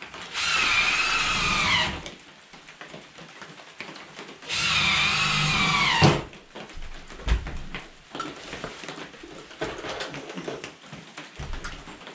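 Power drill driving 3-inch finish-head screws through floorboards, two runs of about a second and a half each, the motor's whine dropping in pitch as each screw seats. Knocks and clicks of handling come between and after.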